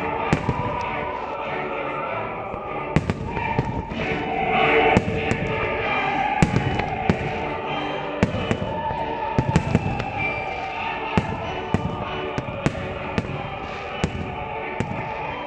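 Aerial firework shells bursting, a rapid, irregular series of sharp bangs, over the display's accompanying music.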